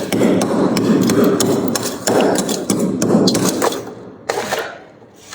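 Close-miked crunching of shaved freezer frost being chewed: a dense run of crisp crackles and snaps that stops about four seconds in, followed by one short crunch.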